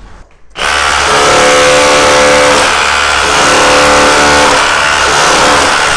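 Bosch GBH18V-26 cordless SDS Plus rotary hammer in hammer-only mode, driving a scutch comb chisel into brickwork to chase out a back-box recess. It starts about half a second in and then runs loud and steady, shaving the brick away.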